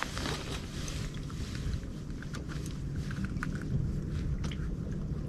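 Light clicks and knocks of fishing tackle and two freshly caught perch being handled in a boat, over a steady low hum.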